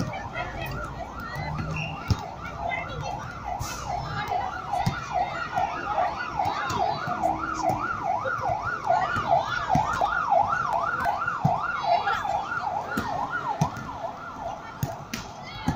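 Emergency vehicle siren in a fast yelp, its pitch sweeping up and down about three times a second. It fades out near the end.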